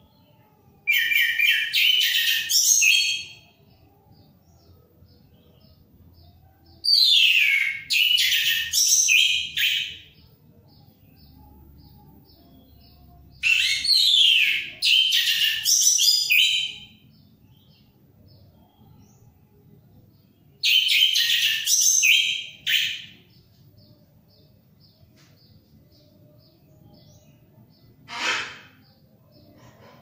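Orange-headed thrush (anis merah) singing in loud bouts of rapid, varied phrases full of quick falling sweeps. There are four bouts of two to three seconds each, several seconds apart, and a single short call near the end.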